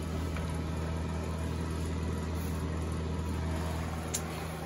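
Electric fan heater running: a steady low hum with an even rush of air from its fan.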